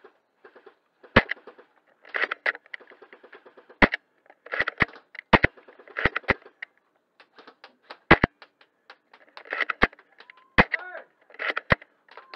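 Airsoft gunfire: scattered sharp cracks mixed with short bursts of rapid clicking.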